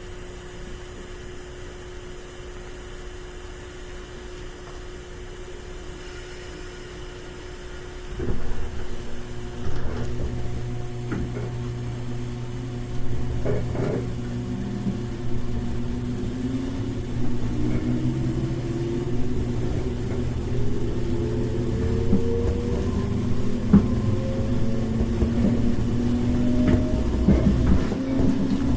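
Inside a JR 415 series 1500-subseries electric multiple unit, standing with a steady hum. About eight seconds in, the train starts off with a low rumble. The DC traction motors' whine then rises steadily in pitch as it accelerates, with occasional knocks along the way.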